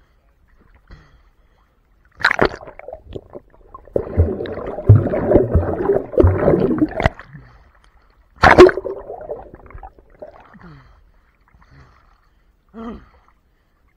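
Lake water splashing and churning around a camera that dips under the surface and comes back up: a sharp splash about two seconds in, a longer stretch of rushing, gurgling water in the middle, another sharp splash past eight seconds, and smaller splashes after.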